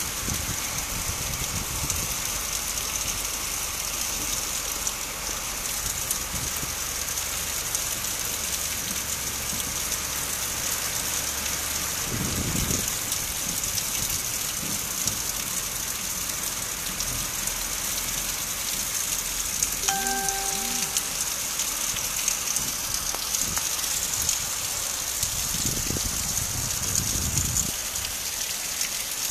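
Heavy rain pouring steadily in a windstorm, with low gusts of wind swelling twice. A brief pitched tone sounds about two-thirds of the way through.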